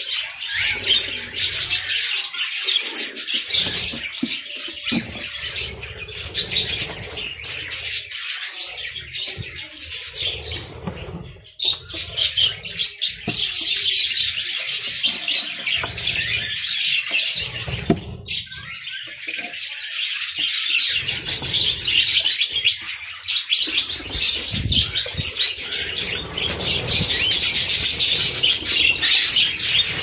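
A flock of budgerigars chattering and warbling without pause: dense, high chirping that dips briefly twice, over low irregular bumps and rubbing from handling.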